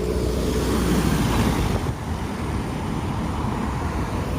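Road traffic at a roundabout: a steady low rumble of engines and tyres, with one vehicle passing close, its noise swelling and fading about a second or two in.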